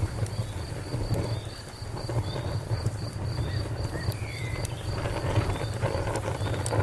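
Open fire crackling over a low steady rumble, with scattered sharp pops. A high, rapidly pulsing chirp, about five pulses a second, runs steadily behind it.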